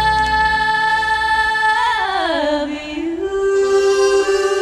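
Country-gospel song: a long held, wavering note slides down about two seconds in and settles on a new, lower held note.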